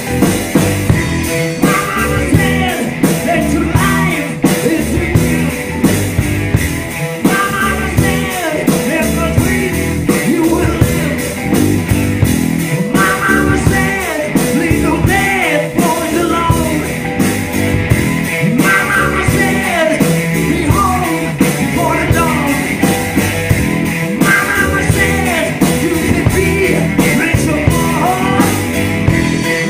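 Live rock band playing a song: a man sings lead over electric guitar, bass guitar and a drum kit.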